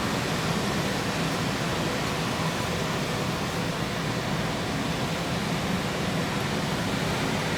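Strong wind blowing: a steady rushing noise that holds at much the same level throughout.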